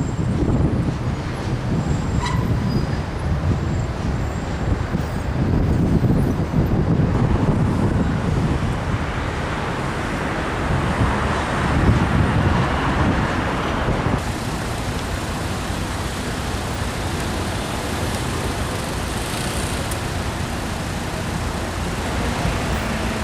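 City street traffic: a steady rumble of motor vehicles passing, with louder swells as vehicles go by. The sound changes abruptly about two thirds of the way through to a flatter, steadier hum.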